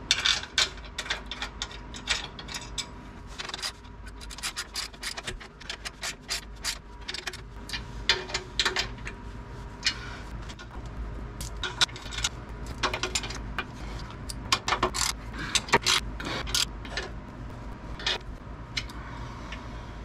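Socket ratchet wrench clicking in short runs, with metal clinks and scrapes, as bolts are driven into captive nuts in the frame to hold up a steel skid-plate bracket.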